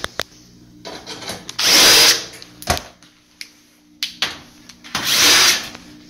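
Power drill with a nut-driver bit spinning out the screws of an electric range's sheet-metal back panel, in two bursts of about a second each with a high motor whine. A sharp knock comes between them, with small clicks of metal.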